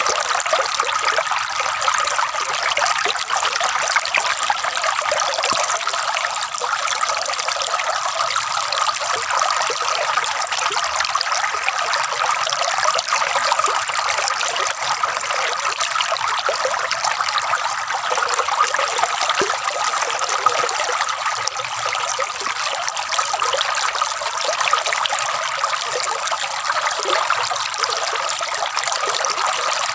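Water trickling and gurgling steadily, an even splashing with nothing else standing out.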